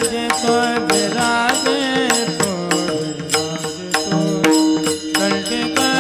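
Marathi devotional bhajan music between sung lines: regular drum strokes under held melodic notes, with short wordless ornamented vocal phrases.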